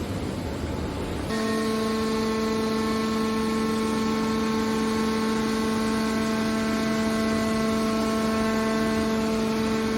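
Hydraulic metal baler running: steady machine noise, joined about a second in by a steady hum that holds on.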